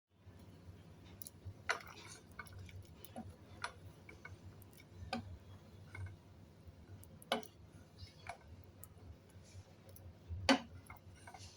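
Soft, irregular clicks and light taps of a spoon against a bowl of porridge, with a louder clink near the end.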